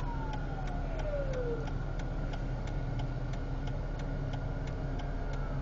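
Car turn-signal indicator ticking steadily, about three clicks a second, over the low hum of the car's interior. In the first second and a half a siren's wail falls in pitch and fades.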